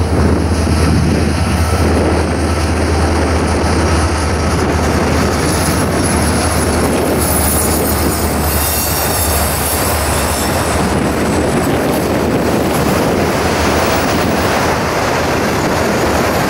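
Freight train rolling past close by. A low diesel locomotive drone fades after about six seconds, leaving the steady rumble of the passing cars on the rails, with a thin high wheel squeal near the middle.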